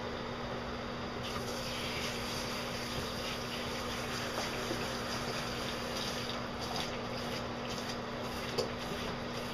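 Handheld shower head running steadily, its spray hissing into the wet, long coat of an Old English Sheepdog during the final rinse of conditioner. A faint steady low hum lies under it.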